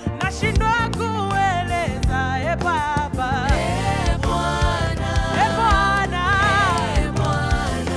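Gospel worship song: singers with a band, a bass line and drum hits under wavering sung melodies.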